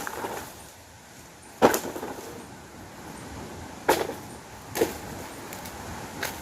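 Four sharp knocks at uneven intervals over a steady outdoor background.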